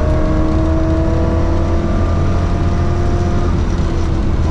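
Ford Escort Mexico rally car's engine heard from inside the cabin, accelerating with its pitch rising steadily for about three and a half seconds, then the note drops. A loud low rumble from the car runs underneath.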